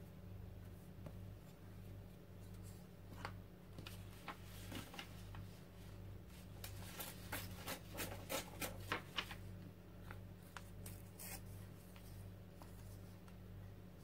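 Paper collage scraps and a glue brush handled on a journal page: light rustles and a run of small taps and clicks, thickest in the middle, over a steady low hum.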